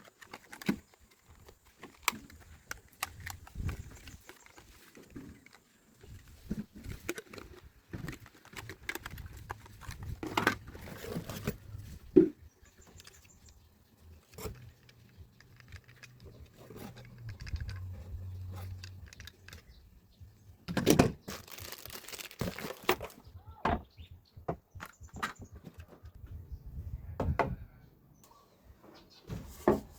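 Scattered knocks, clicks and rustles of workshop handling, with a louder noisy burst lasting about two seconds, a little after two-thirds of the way through.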